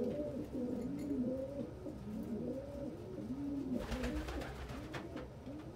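Several domestic pigeons cooing at once, their low rising-and-falling coos overlapping without pause. A brief rustle, about four seconds in.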